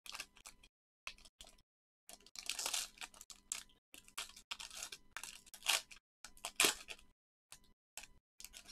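Foil wrapper of a trading-card pack being torn open and crinkled by hand: a run of irregular crackling tears, loudest a little past the middle.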